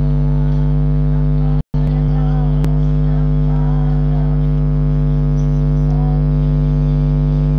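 Loud, steady electrical hum with a buzzy stack of overtones, and a faint voice beneath it. The sound cuts out for a split second a little under two seconds in.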